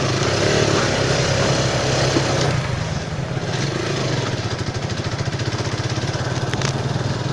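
Motorcycle engine running while riding, with a hiss of wind over it. About three seconds in, the engine note turns into a rapid, even pulsing.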